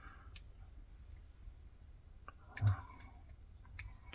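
Small metal clicks and taps of tools prying at a padlock, with one louder knock partway through.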